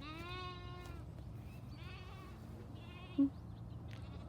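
Lambs bleating: one call about a second long at the start, then fainter quavering bleats, with a short louder call about three seconds in.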